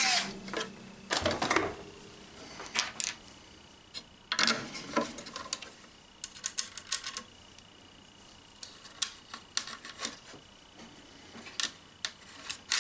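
A cordless drill cuts off right at the start, then a hollow plastic box is handled and turned over on a bench, with scattered clicks, knocks and light metal clinks as small bolts are picked up and fitted into freshly drilled holes.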